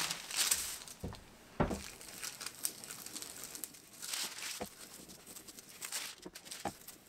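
Greaseproof paper rustling and crinkling as a clothes iron is slid back and forth over it on a veneered tabletop, pressing out a bubble in the veneer, with several light knocks.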